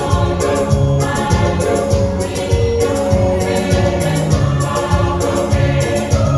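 Junior choir singing a gospel song in several voice parts, over a steady beat of drums and high, evenly repeating percussion.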